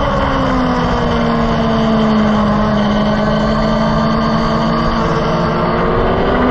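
Engine and wind noise heard from an onboard camera on a race circuit lap. The engine note sinks slowly over the first couple of seconds, holds steady, then climbs again near the end.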